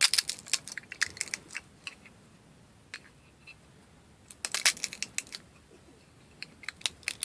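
PLA plastic support material being pressed and broken out of a 3D print: quick clusters of sharp little cracks and clicks, in three bursts.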